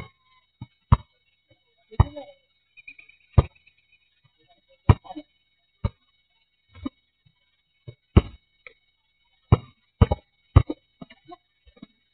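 Basketball bouncing on an asphalt court as it is dribbled: sharp thuds at an irregular pace, roughly one a second, some in quick pairs.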